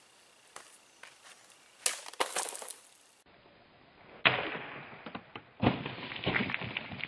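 A homemade wooden club swung into a water-filled plastic bottle: a sharp whack about four seconds in, then another loud hit about a second and a half later with a noisy spray of water and clatter. Two shorter knocks come about two seconds in.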